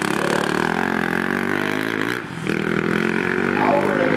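Motocross dirt bike engine running and revving, its pitch dropping briefly about two seconds in and climbing again.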